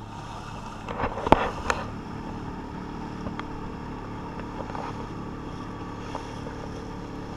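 Small motorboat's engine running steadily while the boat is under way, with a few sharp knocks about a second in.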